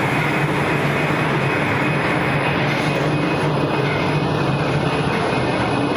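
Popcorn production-line machinery running: a loud, steady mechanical noise with a low hum underneath.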